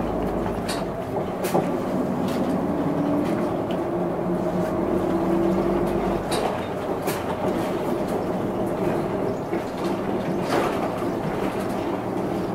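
Hino Blue Ribbon II non-step bus running under way, heard from inside the cabin: a steady diesel engine note with road noise, shifting in pitch partway through. Several sharp clicks and rattles come through it.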